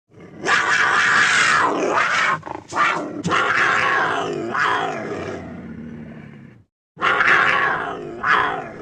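Cougar (puma) giving two long, harsh, rasping calls. The first fades out and cuts off suddenly, and the second starts a moment later and swells once more near the end.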